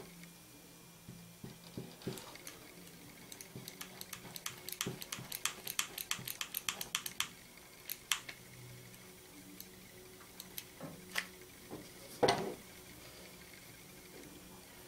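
Hot glue gun in use: a run of light, quick clicks, about four or five a second for several seconds, as the trigger is squeezed to feed the glue stick, then a few single clicks. Near the end a louder knock as the gun is set down on the table.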